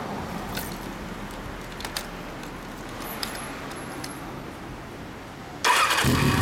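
A few small clicks and jingles, then about five and a half seconds in the Kawasaki Zephyr 1100's air-cooled inline-four suddenly starts and settles into a loud, steady run through its short-pipe exhaust.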